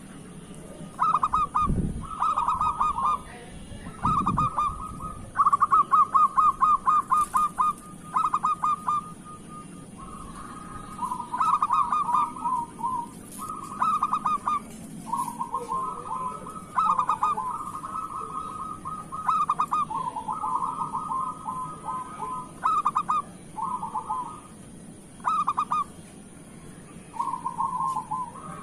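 Zebra dove (perkutut) cooing song: phrase after phrase of quick staccato notes, some phrases overlapping at two pitches. Two dull low thumps sound about two and four seconds in.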